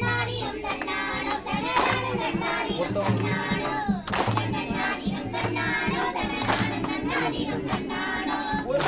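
A group of women clapping hands in unison for a kummi dance, with loud claps about every two seconds, over a kummi song sung with a steady low beat.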